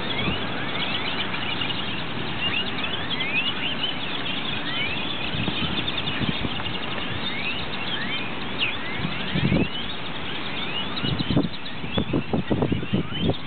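A large flock of purple martins calling as it flies in to roost: many short rising chirps overlapping into a steady chorus. Several low thumps come in the second half, mostly near the end, over a steady background hum.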